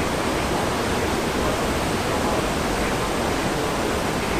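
Steady rushing of churning white water in a cruise ship's wake, stirred up by the ship's azipod propellers.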